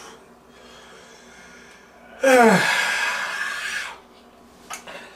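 A man lets out a long, breathy exhale with a voiced sigh falling in pitch, about two seconds in, while reeling from the burn of a very hot sauce extract that is making it hard to breathe. A couple of short faint clicks follow near the end.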